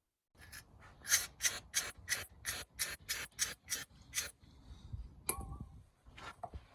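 Rapid back-and-forth scrubbing, about four strokes a second for some three seconds, as oil residue is cleaned off the intercooler's hose connection with degreaser. It is followed by a single knock and a few softer handling sounds.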